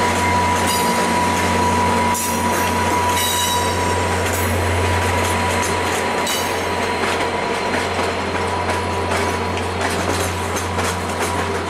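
Stainless-steel Budd passenger cars of a long train rolling slowly past over jointed track and switches. The wheels click unevenly over a steady low hum, with brief high wheel squeals about two to three seconds in and again around six seconds.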